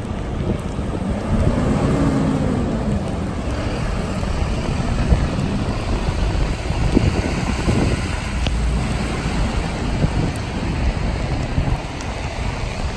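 Wind rumbling on the microphone over a steady hiss of rain and traffic on a wet street. A vehicle engine passes a couple of seconds in, its pitch rising and then falling.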